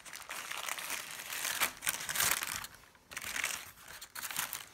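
Paper sandwich wrapper crinkling as it is unfolded by hand, in irregular bursts with a short pause about three seconds in.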